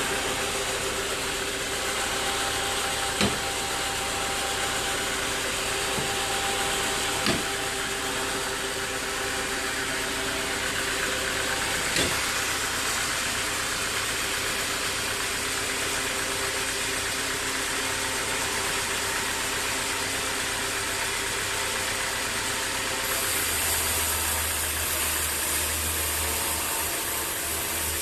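Sawmill machinery running steadily with an engine hum, with three sharp knocks in the first half. Near the end the hum turns deeper and stronger.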